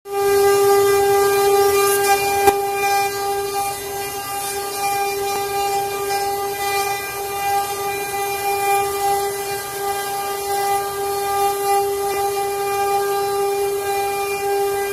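Six-spindle CNC wood carving router running: the spindles give a steady high-pitched whine while the cutters chip through hardwood blocks, with one sharp tick about two and a half seconds in.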